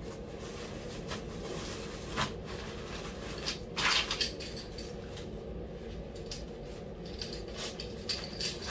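Rustling and swishing of thin ultralight tent fabric and stuff sacks being unpacked by hand, with two louder swishes about two and four seconds in and light clinks near the end.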